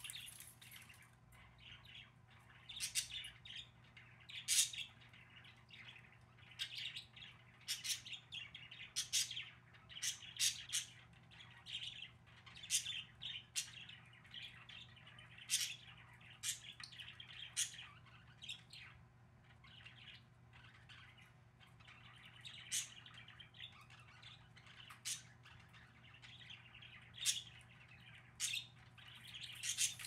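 Pet budgerigars chirping: short, sharp high calls coming irregularly and in quick clusters, over a low steady hum.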